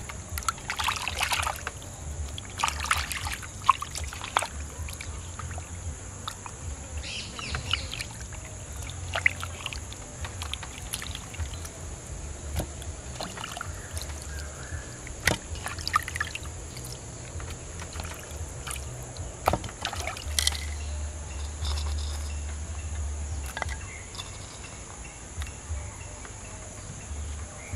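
Hands washing cut fish pieces in water in a clay pot: irregular sloshing, splashing and dripping, with scattered sharp clicks and knocks as the pieces are handled and set down in clay pots.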